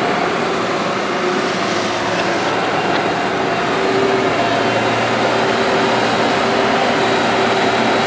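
JCB tracked excavator's diesel engine running steadily as the hydraulic boom and bucket dig, with a faint tone that comes and goes over the engine noise.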